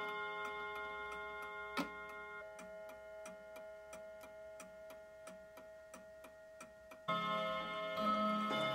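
1930s Mauthe mantel clock movement ticking steadily while the ringing of its three-rod bim-bam strike fades away, with one sharp louder click about two seconds in. About seven seconds in, the rods are struck again and ring out loudly.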